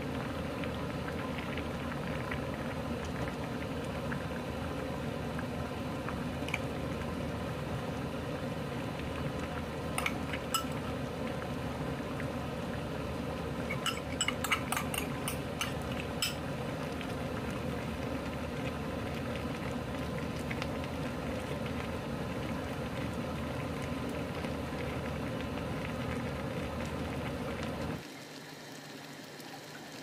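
Cutlassfish and radish braise simmering in an earthenware pot, a steady bubbling hiss, with a few light clinks about halfway through. The sound gets quieter near the end.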